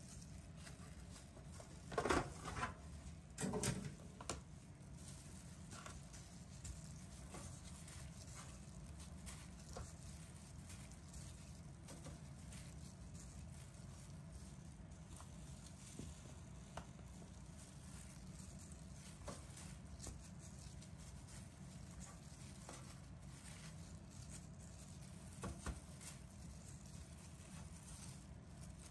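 Soft, sparse taps of chiffon cake pieces being set down one by one on a metal baking sheet by plastic-gloved hands, over a low steady hum. Two louder handling noises come about two and three and a half seconds in.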